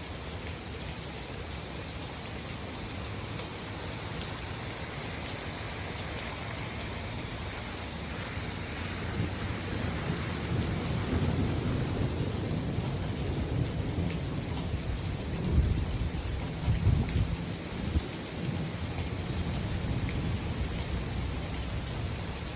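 Steady rain with thunder rolling in: a low rumble builds from about a third of the way through, peaks with a few sharp claps past the middle, then eases while the rain keeps falling.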